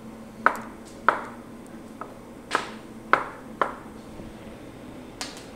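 Chef's knife slicing tomato on a cutting board, the blade knocking the board about seven times at uneven intervals.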